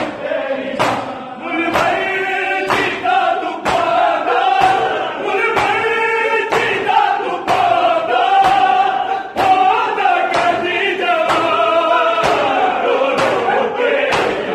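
A group of men sing a noha (Shia lament) in unison, and bare chests are struck with open hands in matam about once a second, each slap sharp and loud, keeping the beat.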